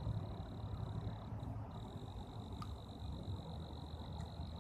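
Creekside ambience: a steady high-pitched insect drone that breaks off briefly about a second and a half in, over a low rumble, with one faint click a little past halfway.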